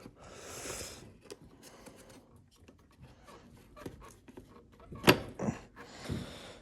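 Small lawnmower engine parts being handled during carburetor reassembly: a brief rustle, scattered light clicks, and one sharp click about five seconds in, followed by a couple of softer knocks.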